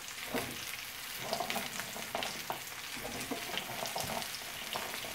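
Diced onions, celery and carrots sizzling in oil in a frying pan, stirred with a wooden spatula that scrapes and knocks against the pan at irregular moments.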